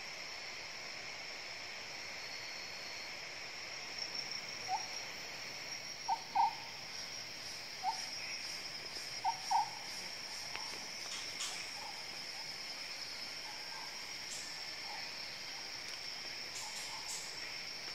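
Tropical rainforest insect chorus, a steady high-pitched drone, with a run of short call notes from an animal between about four and ten seconds in.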